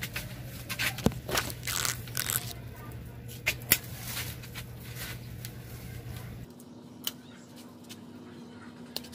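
Hand pruning shears snipping through the branches of a bonsai tree: several sharp cuts, with rustling of leaves and twigs in between, over a low steady hum that drops away about two-thirds through.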